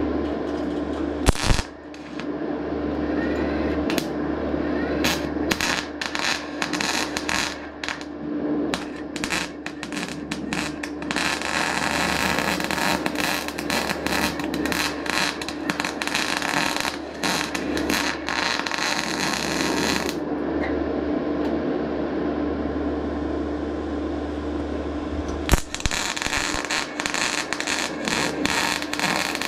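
MIG welding arc crackling on thin sheet steel: a string of short stitch welds, then two longer continuous runs, the second near the end. A steady hum runs underneath.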